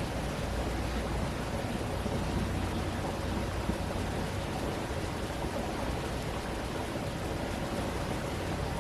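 Stream water rushing steadily, with a low rumble underneath that eases slightly after the first two seconds or so.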